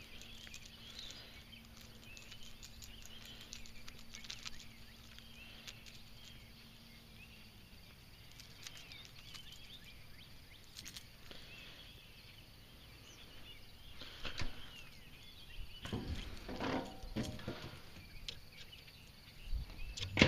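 Quiet outdoor background with faint bird calls. From about two-thirds of the way in there are several irregular thumps and rustles, like gear being handled.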